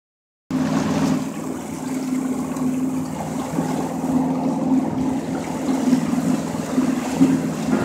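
Johnson 90 hp two-stroke outboard motor running at speed, a steady engine note starting about half a second in, with the rush of the hull and wake beneath it.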